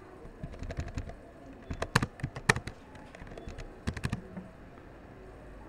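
Typing on a computer keyboard: irregular keystroke clicks with a couple of louder taps about two seconds in, stopping about four seconds in.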